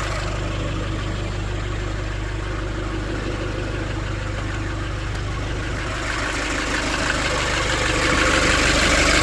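A 2005 Nissan Urvan's diesel engine idling steadily while still cold, getting louder near the end.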